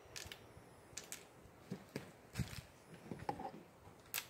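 Faint, irregular clicks and small knocks of hands handling a pellet rifle as pellets are loaded into it, with a sharper click near the end.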